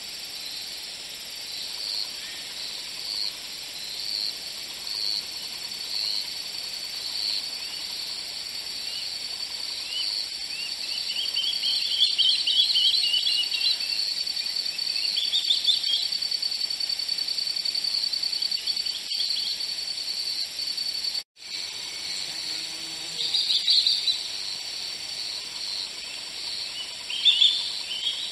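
Natural outdoor ambience: a steady high chirring of insects such as crickets, with bursts of bird calls over it several times. The sound drops out for a split second about three-quarters of the way through.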